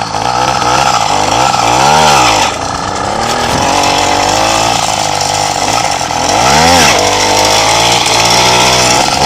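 Motorcycle engine running under way and revved hard twice, about two seconds in and again near seven seconds, each time rising in pitch and falling back. The revving is the throttle blip used to lift the front wheel for a wheelie.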